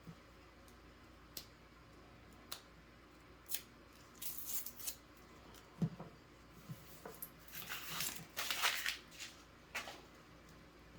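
Paper wrapper of a bank penny roll being torn and crinkled open, in two bouts of rustling tearing, among scattered sharp clicks.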